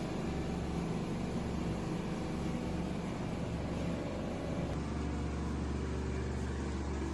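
A steady low mechanical hum, shifting slightly in tone about two-thirds of the way through.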